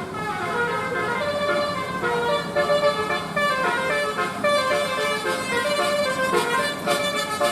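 Indonesian bus 'telolet basuri' musical horn playing a melody of quick, stepping notes over the steady hum of the bus.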